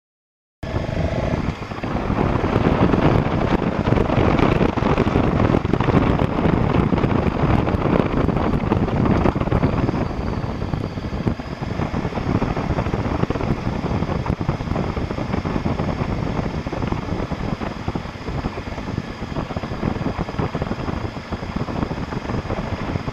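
BMW F650 GS motorcycle riding along a gravel track, its engine running under heavy wind noise on the microphone. The sound cuts in suddenly about half a second in.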